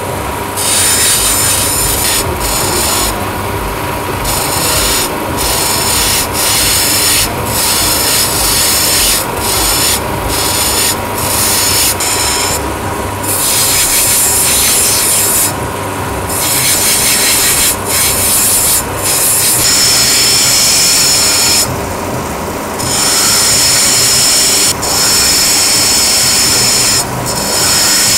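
A multi-wheel cabochon grinding machine runs with a steady hum while an agate stone is pressed against its wet spinning wheels over and over. Each contact gives a loud, hissing grind of a second or two, and it breaks off in short pauses whenever the stone is lifted. This is the smoothing stage of shaping the stone.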